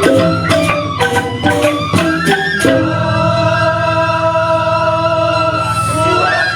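Balinese joged bumbung gamelan music: bamboo xylophones struck in a quick rhythm, giving way after about two and a half seconds to a long held melodic note over a steady low drone.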